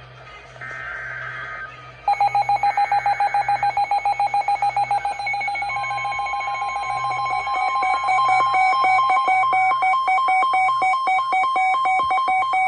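NOAA Weather Radio warning alert: the last two short screeching data bursts of the SAME digital alert header, then a rapid pulsing alert beep. About six seconds in, the steady 1050 Hz warning alarm tone joins it, signalling a warning is about to be read.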